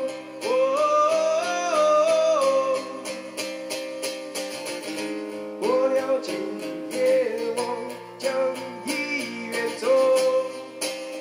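A man singing a slow song to his own acoustic guitar, strummed steadily, in three sung phrases with gaps of guitar between them.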